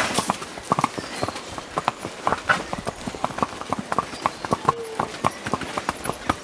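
Horses' hooves clip-clopping on a hard surface, an irregular run of sharp strikes several times a second.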